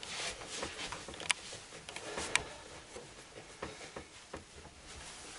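Rustling and handling noise from hands pressing and rubbing along a clothed back, with scattered light clicks and two sharper clicks, about one and two and a half seconds in.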